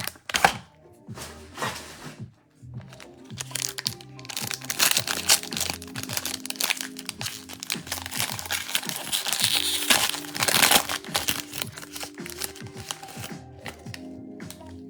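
Plastic wrapping on a sealed trading-card box being torn and crinkled as the box is opened, densest in the middle stretch. Background music plays underneath.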